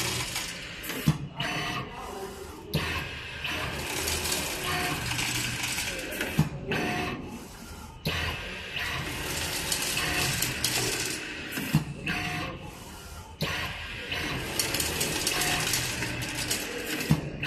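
Automatic nut-tightening machine with a servo screwdriver spindle running through repeated fastening cycles: mechanical whirring and hiss in spells broken by short pauses, with a sharp click about every five and a half seconds.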